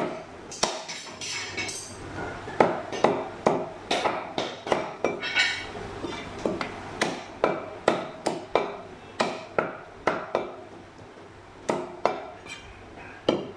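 Butcher's cleaver chopping mutton (goat leg) on a round wooden chopping block: a quick run of sharp chops, about two to three a second, thinning out near the end.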